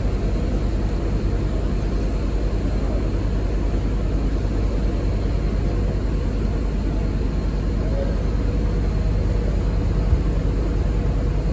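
Nova Bus hybrid city bus idling at the stop, a steady low drone, with a faint whine coming and going in the last few seconds. The uploader finds this hybrid unit louder and different-sounding than expected.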